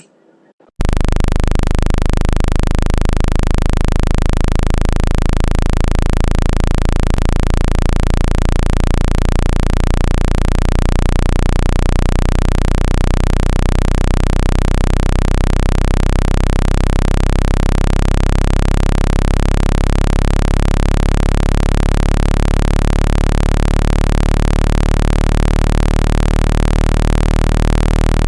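Speaker-cleaning tone played to shake water and dust out of a phone speaker: a loud, steady low buzzing tone with overtones and a hiss over it. It starts abruptly about a second in and holds level.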